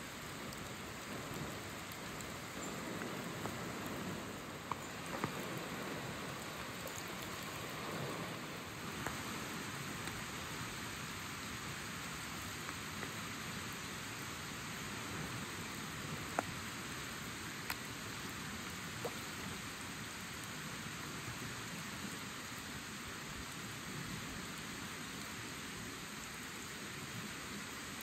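Steady rain hiss, with now and then a single sharp tap of a drop.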